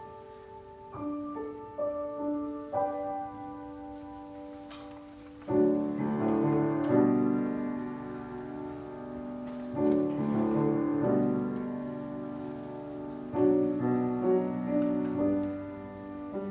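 Solo piano playing slowly: a few sustained single notes, then fuller ringing chords from about five seconds in.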